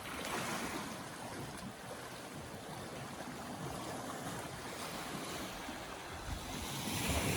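Lake Superior waves washing on the shore: a steady rushing that swells just after the start and again near the end.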